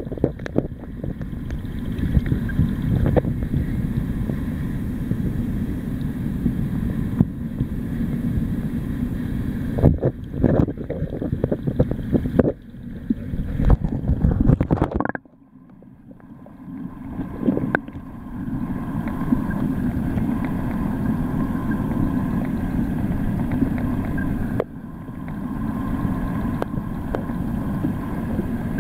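Muffled rumble and rush of tide pool water heard through an underwater camera, with scattered clicks and knocks. The sound drops away suddenly about halfway through, then builds back up over a few seconds.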